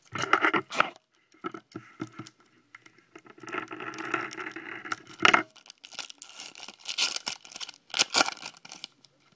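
Foil wrapper of a trading-card pack crinkling and tearing as it is ripped open and handled. The rustling comes in bursts: one at the start, a longer one in the middle and another near the end, with short pauses between.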